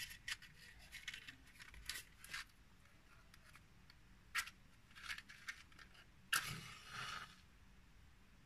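Wooden match struck against a matchbox: a few short scrapes, then a sharp strike about six seconds in that lights the match, followed by about a second of flaring noise.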